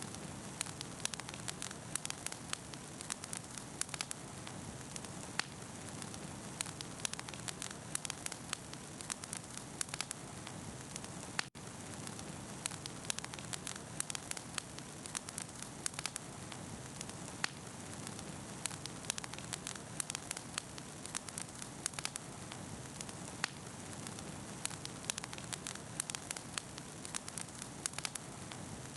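Campfire crackling: a steady hiss with many sharp pops and snaps scattered irregularly throughout. The sound cuts out for an instant once, about eleven seconds in.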